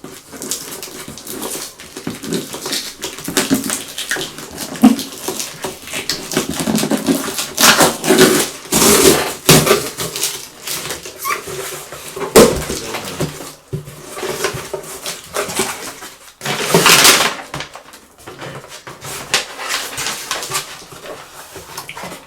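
Shipping box and packaging being opened and unpacked: irregular rustling, crinkling and tearing of cardboard and plastic. The loudest bursts come about midway and about three quarters through.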